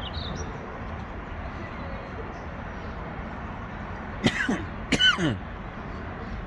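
A man clearing his throat twice in quick succession, about four seconds in, over a steady outdoor background hiss.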